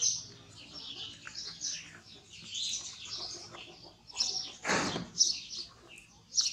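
Rapid high-pitched chirping and squeaking calls, with one louder, harsher call about five seconds in.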